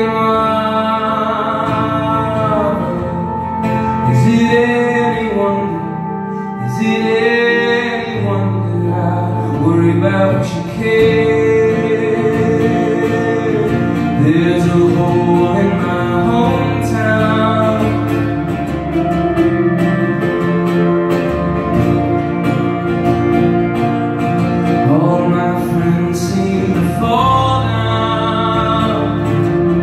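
Live rock band playing a song: a lead singer over acoustic guitar, electric guitar and drums.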